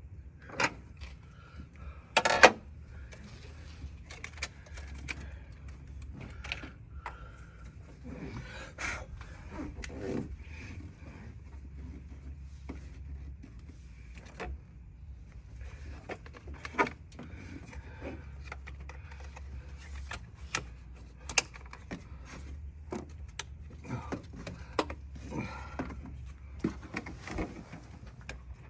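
Hand tools clinking and knocking against metal while a truck battery is being changed, in scattered irregular taps with one loud knock about two seconds in, over a steady low hum.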